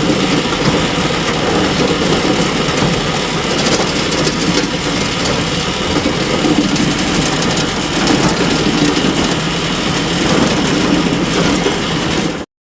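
Bale elevator running: a steady, dense mechanical clatter and hum with no change in speed, which stops suddenly near the end.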